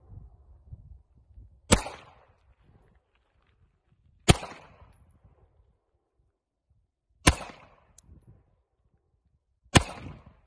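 Four single pistol shots fired slowly, about two and a half to three seconds apart, each a sharp crack with a short echo trailing off.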